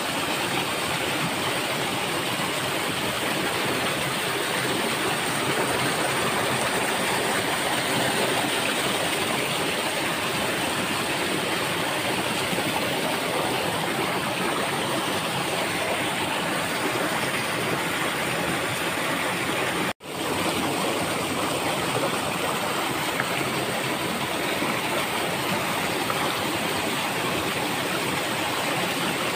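Steady rush of a small cascade of water over rocks close to the microphone. It cuts out for a moment about twenty seconds in.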